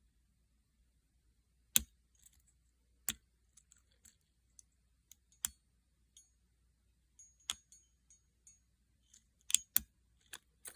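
Pin clicks from a Paclock PL410-Pro padlock being single-pin picked with a hook pick, as pins set at the shear line: about half a dozen sharp clicks a second or two apart, two in quick succession near the end, with fainter ticks between.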